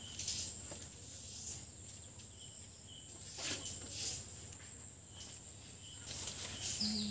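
Steady high-pitched insect drone, with a few short faint bird chirps and occasional brief rustles.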